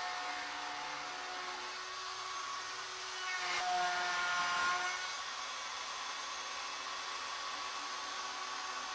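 Wood router on a Legacy Ornamental Mill CNC, running with a steady high whine as its bit mills a wooden leg blank. The cutting noise swells about three seconds in and eases back about two seconds later.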